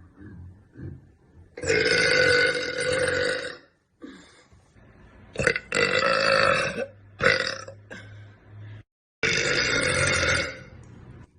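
A young woman burping loudly, one burp after another: the longest last about two seconds, with shorter ones between them.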